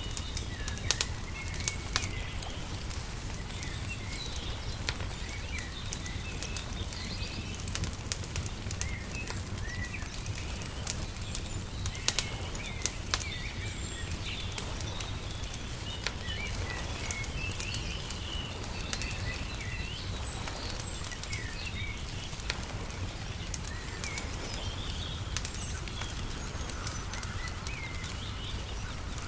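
Wood fire crackling with scattered sharp pops, over small birds chirping busily and a steady low rumble.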